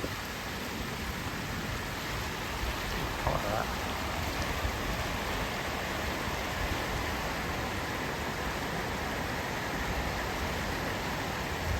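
Swollen river in flood, its water rushing with a steady, even noise.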